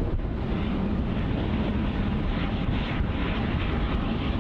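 Steady rumble of tugboat engines working against a large ship's hull, with churning water and wind buffeting the microphone.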